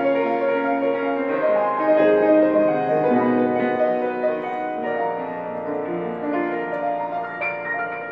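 Solo piano playing slow, held notes and chords.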